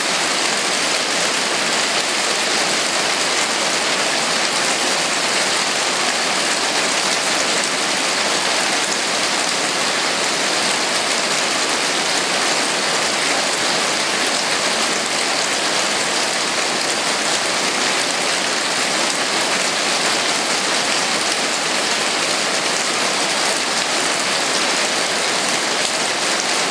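Hail drumming steadily on a sunroom's roof covering, a dense, loud, unbroken patter of many small impacts.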